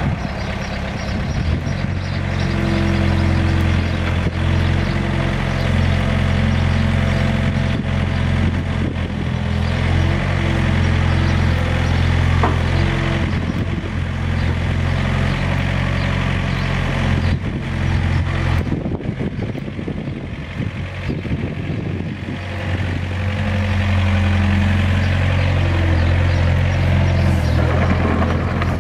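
Wacker Neuson 3503 mini excavator's diesel engine running steadily, rising and easing in turns as the boom, arm and bucket are worked and the machine slews, with a quieter stretch about two-thirds through.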